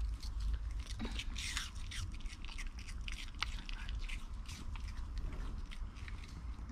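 Maltese dog chewing a piece of apple: a run of irregular, crisp crunches.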